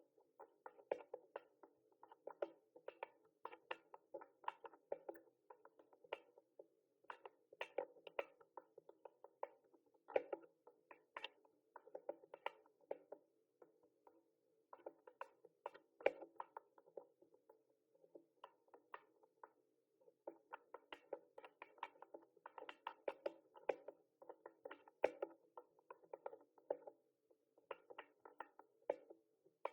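Mechanical keyboard typing: quick runs of key clicks, several a second, broken now and then by short pauses.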